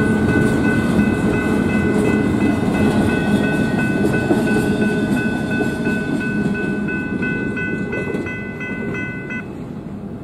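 Double-stack intermodal freight train rolling past a grade crossing, its wheels rumbling on the rails and fading as the last cars go by. Over it the crossing-signal bell rings steadily, then stops abruptly about nine seconds in as the crossing clears.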